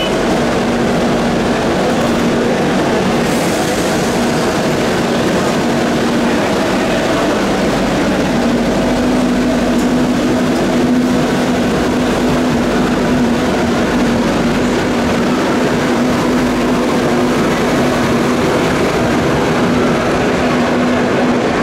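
Madrid Metro CAF 2000A train standing at the platform and then pulling out of the station: a steady motor hum over continuous train running noise.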